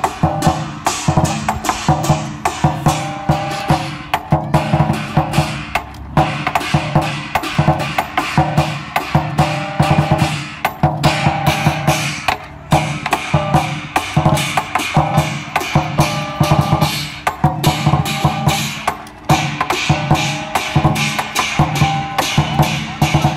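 Chinese lion dance percussion: a large lion dance drum beaten rapidly and continuously with sticks, with cymbals clashing along with it.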